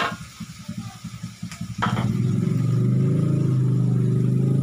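A metal spatula clacks against a wok. Then an engine runs with a quick low pulse, and about two seconds in it grows louder and steadier, rising slightly in pitch.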